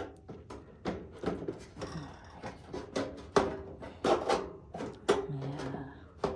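Parts of an electric stove heater being handled and fitted back together: a run of irregular knocks and clicks with some rubbing, the sharpest about three and a half and five seconds in.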